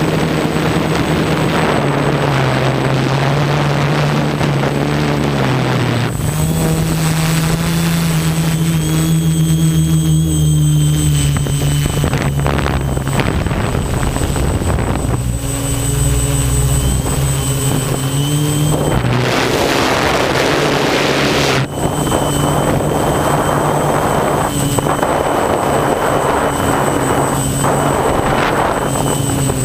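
Quadcopter drone's electric motors and propellers buzzing steadily in flight, the pitch stepping up and down as the drone manoeuvres. Bursts of rushing air noise come in about two-thirds through and again near the end.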